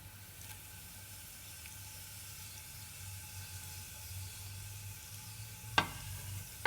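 Cumin seeds sizzling softly in hot ghee in a pan, the tempering step, a steady faint hiss that grows slightly louder. A single sharp knock sounds about six seconds in.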